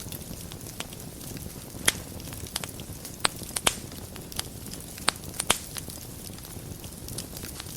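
Wood fire crackling in a fireplace: a steady low rush of burning with frequent small ticks and about five sharper pops of the burning wood.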